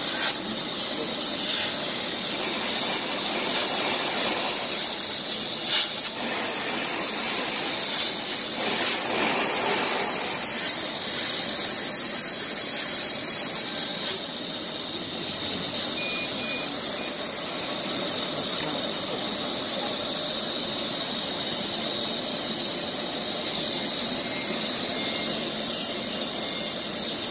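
CO2 laser cutting machine running while it cuts cloth on its conveyor bed: a steady hiss of blowing air from its exhaust fans and air assist.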